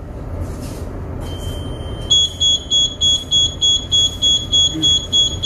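Electronic alarm on a ship's bridge: a steady high tone comes on about a second in, then turns into rapid, evenly repeated beeps of about four a second. A low steady hum runs underneath.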